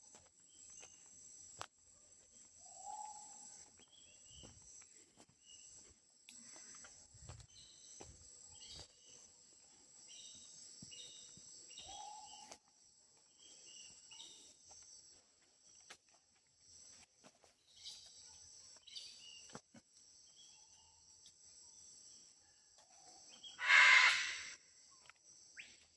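Amazon rainforest ambience: a steady high-pitched insect chorus with scattered bird calls, including short whistled notes and quick chirps. A loud, harsh sound lasting about a second comes near the end.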